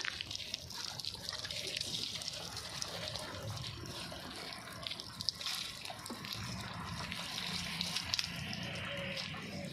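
Diesel engine of a JCB 3DX backhoe loader running, with wet mud sloshing and splattering as it is loaded; the engine note changes about six seconds in.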